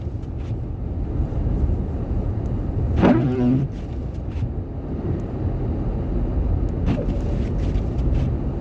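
Steady low rumble of a car's engine and tyres, heard from inside the cabin while driving on a snowy road. About 3 seconds in there is a brief vocal sound from the driver.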